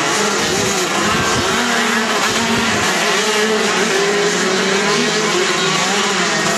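Several 125 cc two-stroke racing kart engines running at once, their pitches rising and falling as the karts slow for and accelerate out of the corners.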